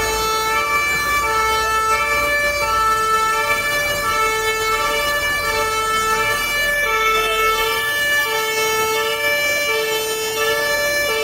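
Two-tone emergency vehicle siren, switching steadily back and forth between a low and a high note about every three-quarters of a second.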